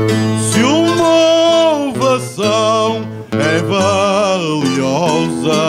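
A man singing Azorean cantoria, holding long notes with a wide vibrato and sliding up into them. A viola da terra and an acoustic guitar play plucked notes underneath.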